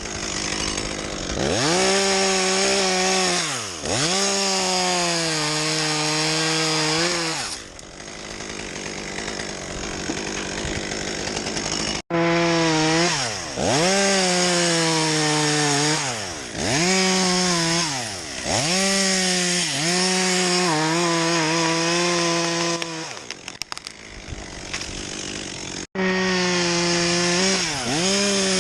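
Two-stroke chainsaw running at high revs cutting wood, its engine note dipping sharply and recovering several times as the chain bites. It drops to a quieter running sound for a few seconds and cuts off abruptly twice.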